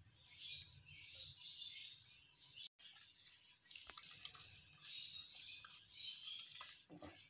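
Silicone spatula stirring fish pieces through white flour and a wet spice marinade in a glass bowl: soft, irregular wet squishing and scraping, with a few light clicks against the glass.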